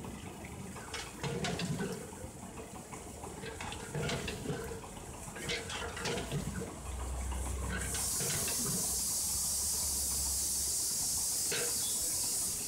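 A long metal ladle stirs and scrapes in a large aluminium pot of simmering gravy, with clinks and liquid sloshing. About eight seconds in, a steady, loud hiss sets in and holds until near the end.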